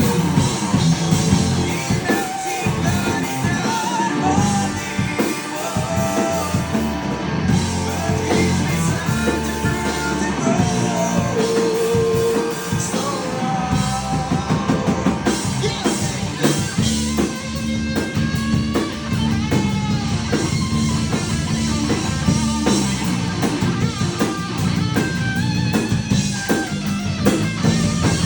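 Live rock band playing a heavy metal song: distorted electric guitar, bass and drum kit, with a male singer's voice over them.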